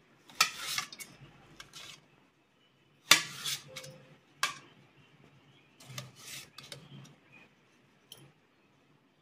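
Kitchen knife cutting tomatoes on a stainless steel plate: irregular clinks and short scrapes of the blade against the metal, the loudest about three seconds in.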